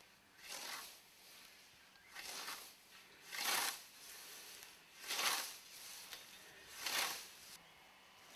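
Hand scythe swishing through tall grass and weeds, cutting in a steady rhythm: five strokes about every second and a half, the last three louder.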